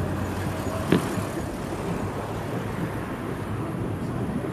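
A single firework bang about a second in, over a steady low background rumble.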